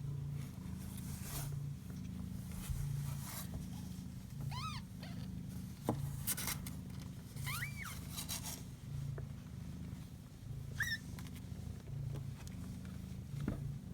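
Kitten purring, a low hum that swells and eases with each breath about every second. Three short, faint high squeaks come through over it.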